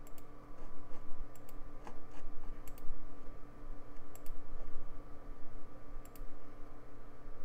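Computer mouse button clicking about five times, spread out, each a quick press-and-release pair, over a steady hum.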